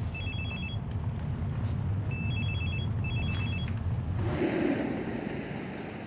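Mobile phone's electronic ringtone, groups of quick high beeps repeating, over the low hum of a car's engine heard from inside the cabin. About four seconds in, the ringing stops and a car drives past with a rushing noise.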